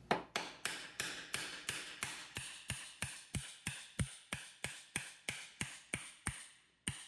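Hammer tapping an aluminium punch against the distributor drive gear of a Jaguar XK engine block: light, even taps, about three a second, with a short pause before a last tap near the end. The taps are driving the distributor drive out of the block.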